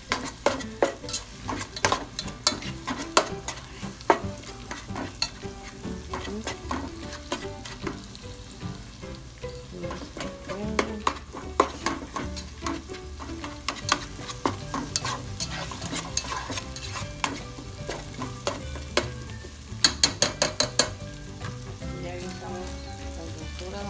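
Chopped chorizo, tomato and onion frying in a nonstick pot and stirred with a spatula: a steady sizzle under repeated scraping clicks of the spatula against the pot. A quick run of about ten sharp clicks comes near the end.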